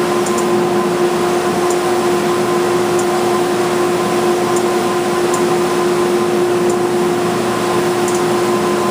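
Steady running hum of a wide belt sander with its dust collection, an even noise with a constant tone through it.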